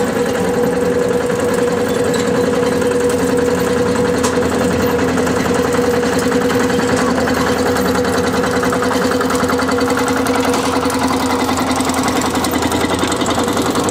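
Small Jung narrow-gauge diesel locomotive's engine running steadily with an even chugging beat as it hauls a short train of open passenger cars slowly along.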